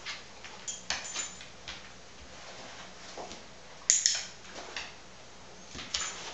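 Scattered light taps and scrapes as a dog noses and paws cardboard egg cartons on a vinyl floor. About four seconds in comes a sharp double click, a dog-training clicker marking the dog's alert on a scent carton.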